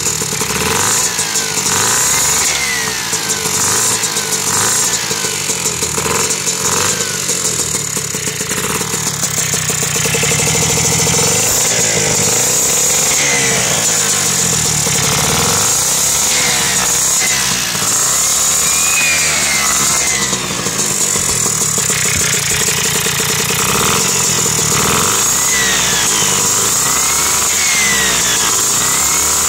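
Piaggio Ciao moped's two-stroke Malossi 65cc kit engine running through a Techno Circuit expansion pipe. The throttle is blipped repeatedly, so the revs rise and fall every few seconds over a steady idle. The freshly built engine still needs tuning.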